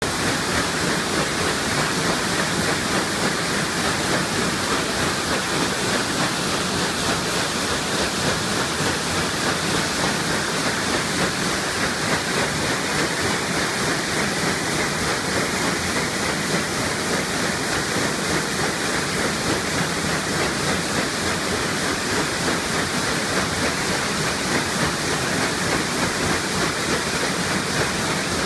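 Steamboat Natchez's red stern paddle wheel churning through the river, a steady rush of splashing and spraying water.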